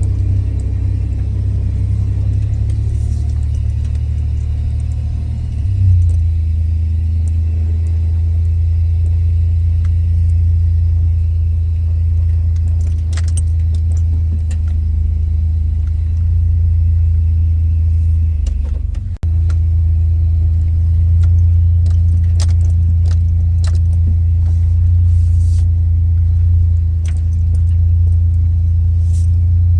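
Chevrolet C1500 pickup's engine running steadily at low revs through a Flowmaster muffler, a deep even drone. It briefly drops out about two-thirds of the way in. Light scattered clicks are heard near the end.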